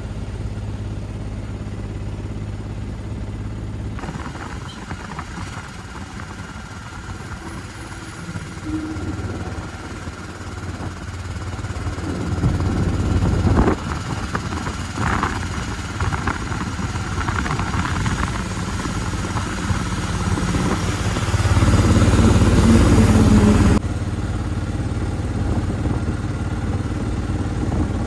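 Auto-rickshaw engine running on the move, with road and passing-traffic noise that swells louder twice, about halfway through and again near the end.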